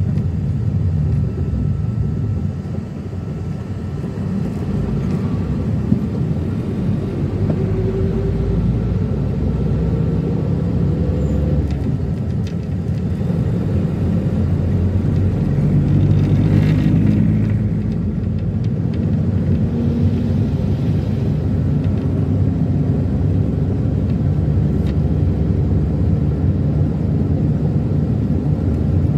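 Minivan driving on the road: steady engine and tyre rumble, with the engine note rising and falling. About halfway through, a louder whoosh of a vehicle passing close by swells and fades.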